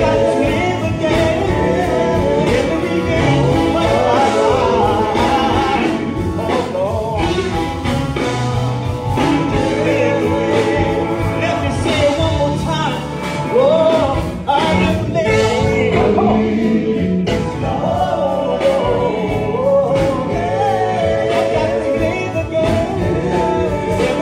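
Live gospel music: a man singing lead with other voices, over band backing with a steady bass line.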